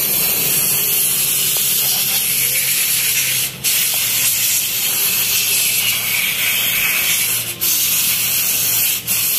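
Aerosol carburettor cleaner hissing steadily as it is sprayed onto a carburettor, broken off briefly three times.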